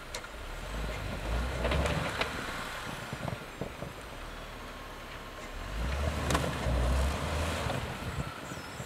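Jeep Wrangler engine revving in two surges, about a second in and again around six seconds in, as the vehicle tries to drive out of deep snow with its tires spinning and digging in.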